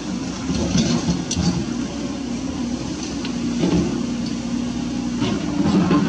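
Toyota Dyna 130HT dump truck's diesel engine running steadily as the truck creeps along slowly, with scattered light clanks and rattles from the truck.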